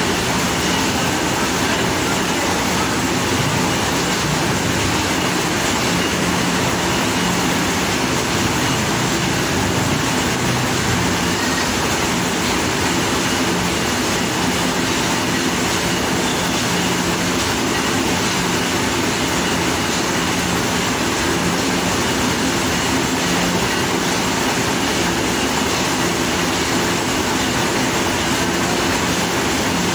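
Corn mill machinery running steadily while grinding corn: a loud, even mechanical din with a low hum underneath.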